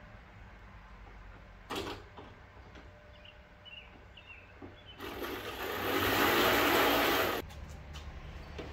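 A single sharp click a little under two seconds in, then a steady hiss that starts abruptly, runs about two and a half seconds and cuts off sharply.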